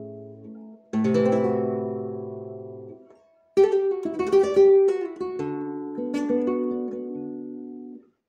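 Solo flamenco guitar played in the style of a taranta. A full chord is struck about a second in and rings out and fades. After a short pause, a run of quick picked notes leads into chords that ring and die away near the end.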